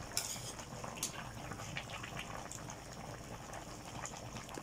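Pot of vegetable soup boiling on the stove: a steady bubbling with many small pops, with a ladle moving in the broth.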